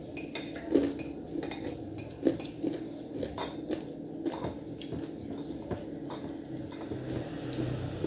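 Cutlery clinking and scraping against a plate during a meal, in a string of irregular light clicks.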